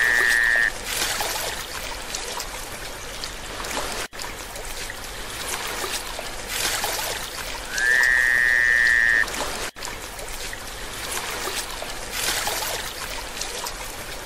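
A steady hissing, trickling noise with a short high whistling call that rises and then holds, heard at the very start and again about eight seconds in.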